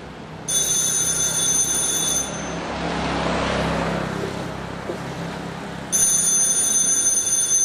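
Telephone bell ringing twice, each ring about two seconds long, with a pause of several seconds between them.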